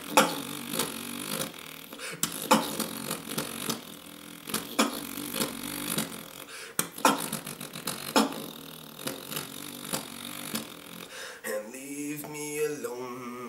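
A young man beatboxing: sharp kick- and snare-like sounds made with the mouth, in an uneven rhythm, with a hummed pitched line joining near the end.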